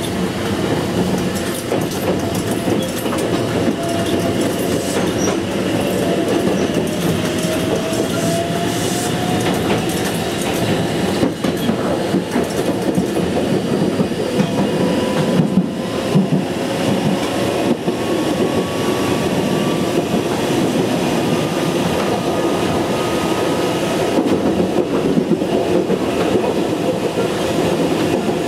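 Fukui Railway Series 880 electric train running, heard from the driver's cab: a steady rumble of wheels on rail with clicking over rail joints, and a faint motor whine that rises slowly in pitch as the train gathers speed.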